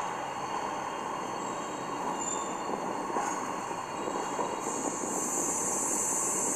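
Indian express passenger train running through a station: the steady noise of the coach and its wheels on the rails. A high-pitched hiss joins about two-thirds of the way in.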